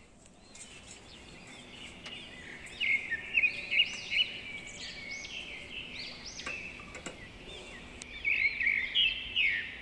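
Many small birds chirping and twittering together in dense, overlapping calls, growing louder about three seconds in and again near the end.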